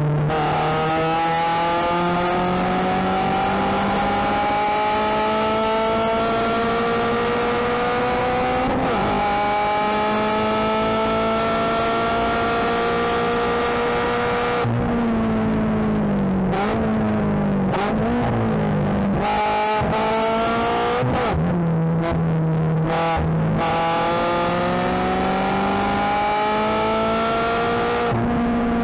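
Subaru BRZ race car's 2.0-litre flat-four boxer engine heard from inside the cabin. It revs up hard in third gear, shifts to fourth about nine seconds in and pulls on to full speed. About halfway it lifts for braking with a series of throttle blips on the downshifts, then revs up again in third.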